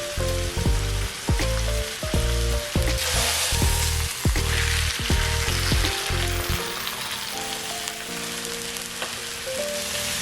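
Food sizzling in a hot pan, a steady frying hiss, over background music with a beat whose bass drops away about two thirds of the way through.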